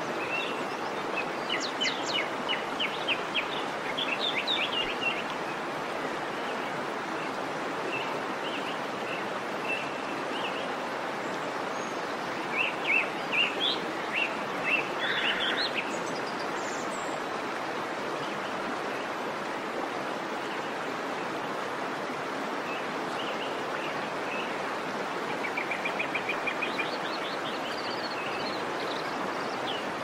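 Steady rush of falling water, with songbirds chirping over it in runs of quick short notes: near the start, more loudly in the middle, and again near the end.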